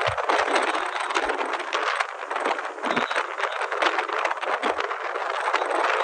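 Steady rattling and road noise from riding in a moving vehicle, with many small knocks and clatters.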